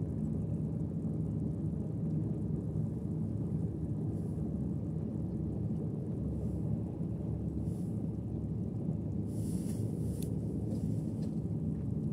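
Steady low rumble of seaside outdoor ambience, with a few faint, brief hissing swishes; the clearest comes about nine to ten seconds in.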